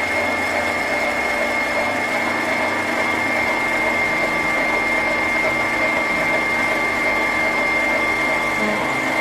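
Electric stand mixer running steadily at speed with a thin high whine, whisking egg whites and sugar into meringue.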